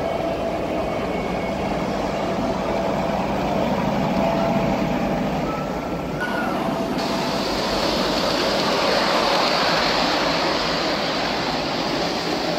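Model trains running on a layout: a steady whir and rattle of small motors and wheels on track, with faint thin tones, over hall background noise. About seven seconds in, the sound turns hissier as a model train runs close by.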